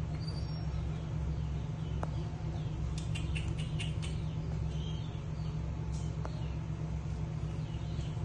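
Baby macaques squeaking: a quick run of about half a dozen short, high squeaks about three seconds in, over a steady low hum.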